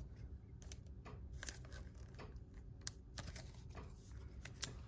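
Faint, irregular small clicks and taps of a trading card being handled against hard plastic, typical of slipping a card into a rigid card holder, over a low room hum.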